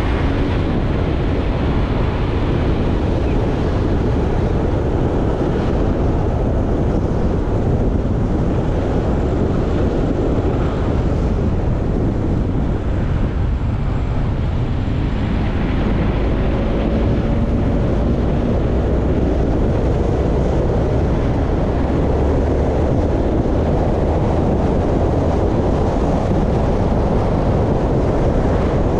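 Wind buffeting the microphone of a camera moving along a road, heard as a loud, steady rumbling rush.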